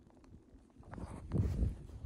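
Hiking boots stepping across loose talus in a boulder field: irregular low thuds with a few clicks of stone on stone, the heaviest steps about halfway through.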